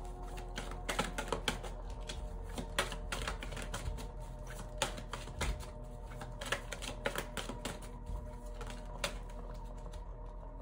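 A deck of oracle cards being shuffled and handled, a run of irregular light clicks and taps of card against card, over soft background music with held tones. The clicking stops about nine seconds in.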